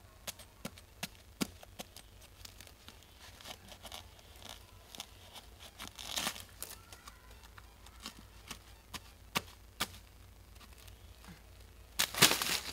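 Dry plant matter crackling and tearing: scattered sharp snaps, a rustling tear about halfway through and a louder, longer tearing rustle near the end.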